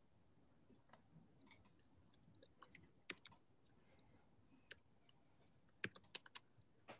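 Near silence with faint scattered clicks, bunched about three seconds in and again about six seconds in.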